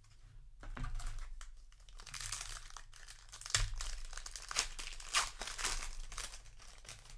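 Plastic wrapper of a Magic: The Gathering set booster pack crinkling and tearing as it is opened, with a few sharper crackles in the middle.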